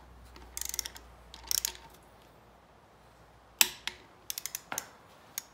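Ratchet head of a Craftsman torque wrench clicking in short quick runs as it is swung back and forth to snug main-cap bolts to a first torque step. One sharp, louder click comes about three and a half seconds in.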